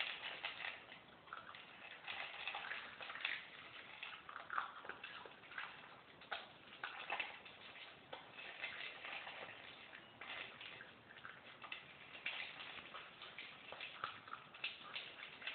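Two small dogs eating dry kibble from a shared bowl: an irregular, continuous run of crunches and clicks.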